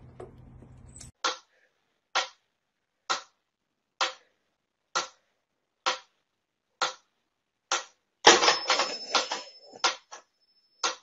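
Mechanical metronome ticking evenly at about one tick a second, eight sharp ticks. It is followed by about two seconds of busier rapid clicking and knocking, then one more tick near the end.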